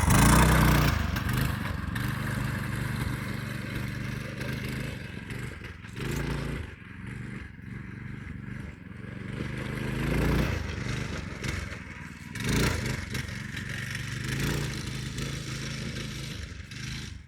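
Go-kart's 8-horsepower engine running as the kart is driven around, revving up and down. It is loudest right at the start and swells again several times as the kart comes closer.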